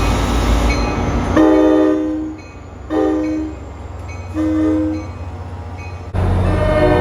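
Train air horn sounding one long blast then two short ones, each a chord of several notes, after a loud rumble in the first second or so; about six seconds in a louder, fuller horn chord starts and holds.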